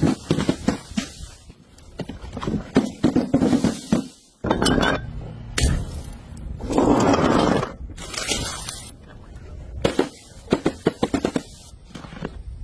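Glass bottles being smashed: clusters of sharp breaking impacts and clinking, scraping shards, with a longer crash of shattering glass about halfway through.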